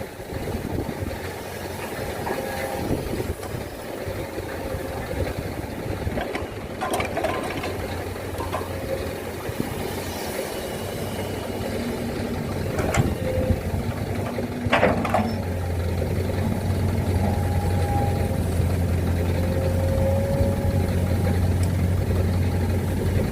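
Heavy diesel engine running steadily, with three sharp metallic clanks. A deeper, steadier engine hum builds about two-thirds of the way through.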